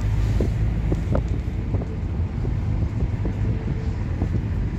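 Moving car: a steady low drone of engine and road noise, with a few short knocks.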